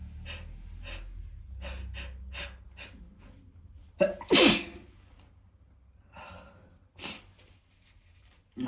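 A man sneezing: a few short, quick breaths build up, then one loud sneeze about four seconds in, followed by a couple of smaller breathy sounds near the end.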